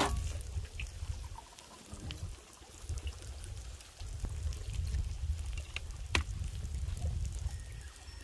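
Pork sizzling on a hot soapstone griddle, a fine steady crackle. A low rumble runs underneath, and sharp clicks come at the start and about six seconds in.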